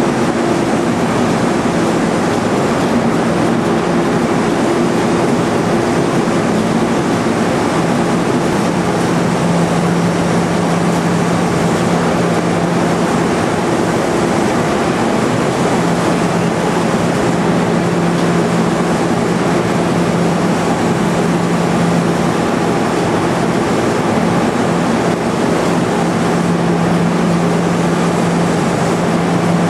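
Fruit-processing plant machinery running: electric motors and pumps make a loud, steady mechanical rush, with a low hum that swells and fades every few seconds.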